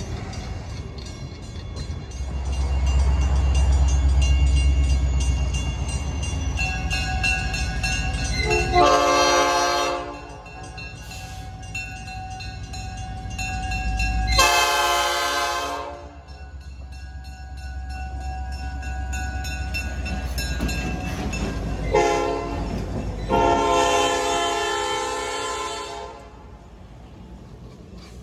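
Diesel locomotive approaching with a low engine rumble, then sounding its air horn in the grade-crossing pattern: two long blasts, a short one and a final long one. Its passenger cars roll past near the end.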